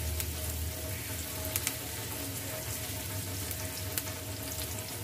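Chopped onions sizzling steadily in hot oil in an aluminium frying pan as they are stirred with a spoon, with a few light clicks of the spoon against the pan.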